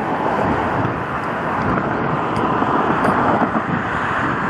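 Two CN diesel freight locomotives approaching slowly at the head of a freight train: a steady engine rumble that grows slightly louder.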